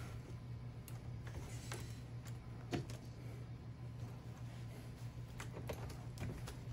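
Faint scattered clicks and light handling noises from servo wires being gripped and pulled through a 3D-printed robot leg, over a steady low hum.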